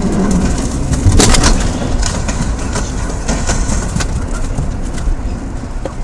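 Rumbling cabin and road noise of a vehicle moving on a slushy, snow-covered highway, with a loud clattering knock a little over a second in.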